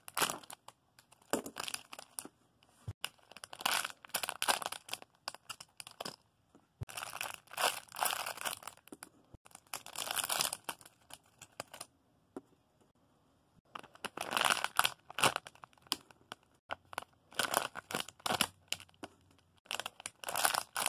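Plastic crinkling and rustling in repeated bursts of a few seconds each, as squishy toys are handled and sorted into boxes.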